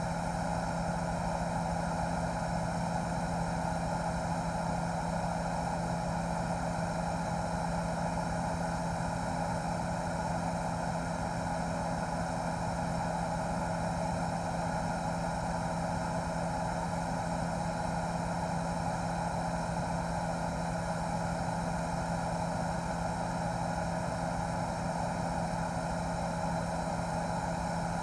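Helicopter's steady drone of rotor and turbine, holding a constant pitch and level throughout.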